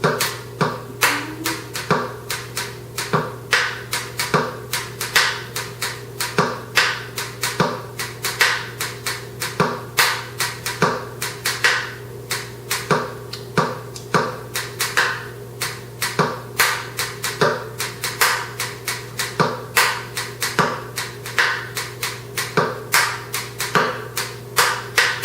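Instrumental outro of fast, hard, percussive strumming on a stringed instrument, two to three sharp strokes a second with muted hits between, over a steady low ringing.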